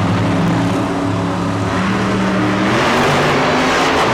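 Monster truck engines revving hard, the pitch shifting up and down, the sound getting harsher and fuller about halfway through.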